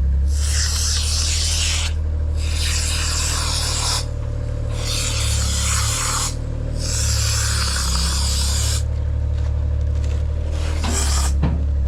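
Four long scraping strokes, each lasting one and a half to two seconds with short pauses between them, plus a short stroke near the end, over a steady low hum.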